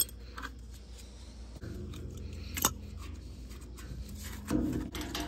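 Metal clicks and clinks of a heating oil filter canister being handled and opened by gloved hands: a few sharp clicks, the sharpest about two and a half seconds in, and a louder clatter about four and a half seconds in, over a faint low hum.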